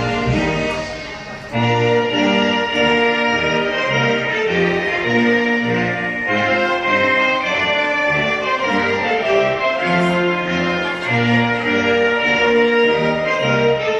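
Orchestral music with strings and brass, played through a PA system. It dips briefly about a second in, then carries on with held chords.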